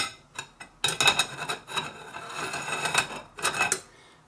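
Steel and friction clutch plates from an E4OD automatic transmission clinking and scraping against the metal clutch drum as they are pulled out by hand. A few light clicks come first, then a longer metallic rattle with ringing, then one more clink.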